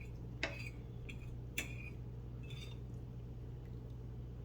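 Cutlery clicking and clinking against a plate while eating, four light strikes in the first three seconds over a steady low hum.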